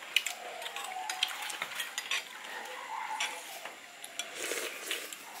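Food stir-frying in a pan: a metal spatula clicks and scrapes against the pan several times a second over a light sizzle.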